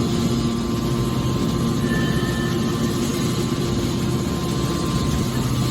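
Hydraulic metal baler running: a steady mechanical hum with a low drone and a few held tones, without let-up.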